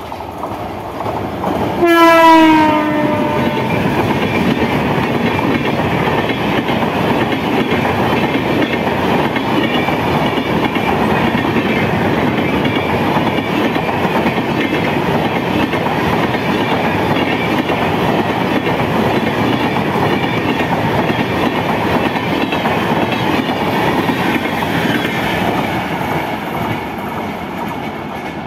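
Indian Railways express train passing through a station at speed. A short horn blast sounds about two seconds in, its pitch dropping slightly, then comes the steady noise of the coaches running over the rails, easing off near the end.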